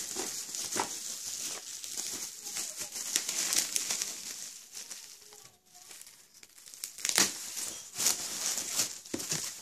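Plastic bubble wrap crinkling and rustling as a wrapped box is handled and unwrapped by hand, with many small sharp crackles. It eases off briefly in the middle, then picks up again with a louder crackle.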